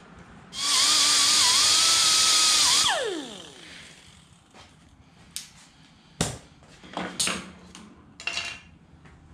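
Handheld air-powered cut-off tool running for about two seconds, cutting through a glued and taped braided -6 AN hose, with a wavering whistle under the hiss; its pitch falls away as the wheel spins down. A few sharp clicks and knocks follow.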